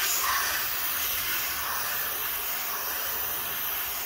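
One long, steady hiss of a pressurized spray jet washing lapping-compound grit off a valve seat and valve in a cylinder head.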